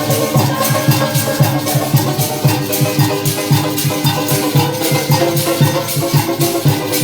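Parang music played live, with maracas shaking a fast, steady rhythm over sustained pitched instrument notes.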